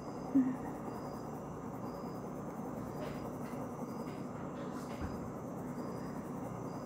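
Steady background hiss, with a brief low blip just after the start and a few faint soft ticks in the middle; no distinct pencil strokes stand out above it.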